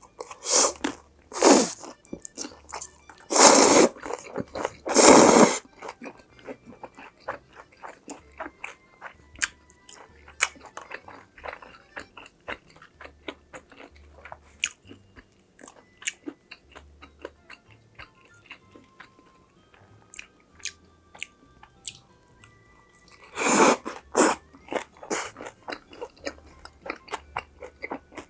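A person eating: loud crunchy bites, several in the first six seconds and a pair about 23 seconds in, with chewing between them. Quiet background music plays underneath.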